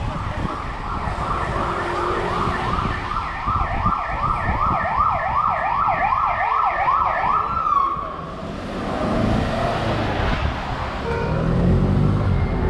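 Emergency vehicle siren yelping, a rapid up-and-down sweep that quickens to about three cycles a second, then cuts off about eight seconds in. Street traffic noise follows, with a vehicle engine running near the end.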